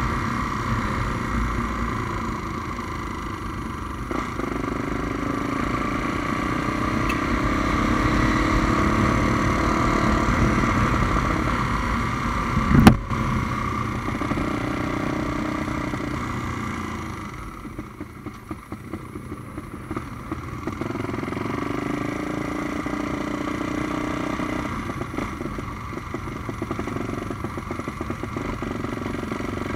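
Tuned Honda Tornado single-cylinder motorcycle, bored out to 350cc, running under way. A sharp knock comes about 13 seconds in, and the engine goes quieter for a few seconds a little past the middle before picking up again.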